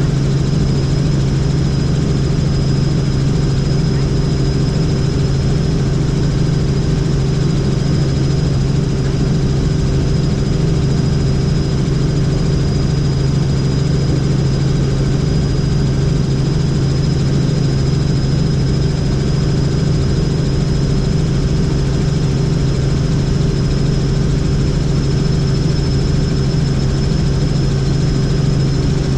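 Helicopter in flight: a steady low drone of engine and rotors with a constant high whine above it.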